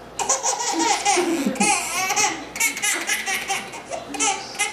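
An 8-month-old baby laughing in a string of short, high bursts with brief breaks between them.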